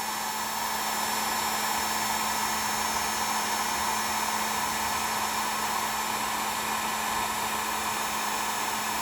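Electric heat gun blowing steadily, with a steady low motor hum underneath, as it heats heat-shrink tubing tight onto a typewriter platen.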